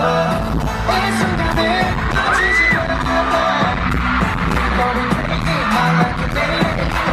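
K-pop dance track played loud with a heavy beat and singing voices.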